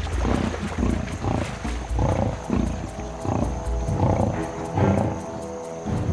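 Lionesses growling in short, repeated rough pulses over a buffalo kill, with a music score of held tones underneath.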